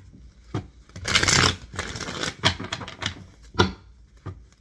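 Tarot cards being shuffled by hand: a series of sharp card snaps and taps, with a longer rustling burst about a second in.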